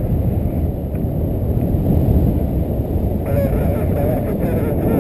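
Wind rushing steadily over the microphone of a camera carried by a paraglider in flight.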